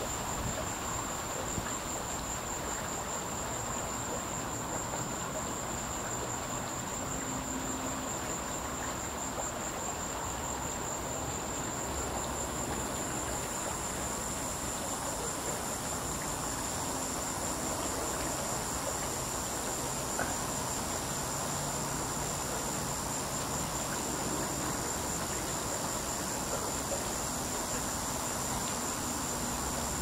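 Cicada singing: a steady, unbroken high-pitched buzz, joined about twelve seconds in by a fainter, higher hiss.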